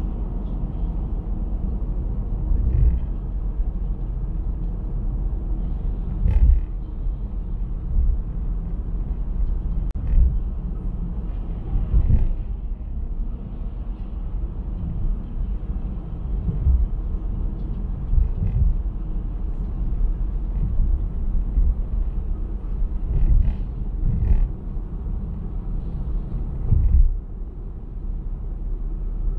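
Road noise heard from inside a moving car: a steady low rumble of tyres and engine, with a short thump every few seconds as the wheels go over bumps in the road.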